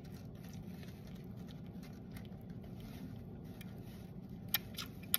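Baby squirrel suckling hard on a rubber nipple on a milk syringe: faint wet clicks and smacks, with a few sharper ones near the end, over a steady low hum. The hard sucking is the sign of a very hungry kit.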